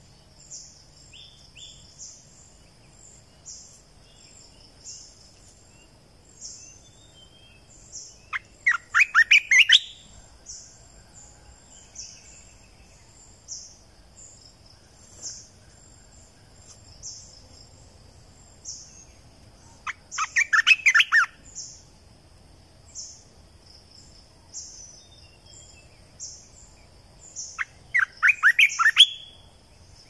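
Olive-winged bulbul song: three loud runs of quick notes, each about a second and a half long, spaced roughly ten seconds apart. Under them runs a steady high insect drone, with a short high chirp repeating faster than once a second.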